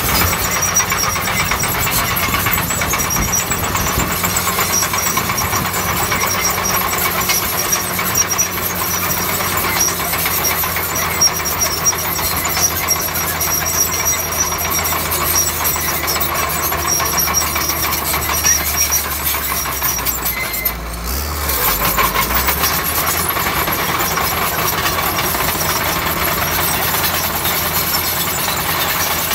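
Crawler bulldozer's diesel engine running steadily under work, with continuous metallic clatter; about twenty seconds in the sound briefly drops and then picks up again.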